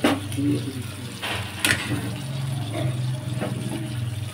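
Water running from a tap, with a sharp knock at the start and a brief clatter about a second and a half in.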